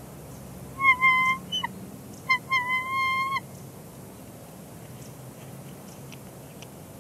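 Bald eagles calling at the nest: two short bouts of high, piping calls, the first about a second in and the second, longer, at around two and a half to three and a half seconds.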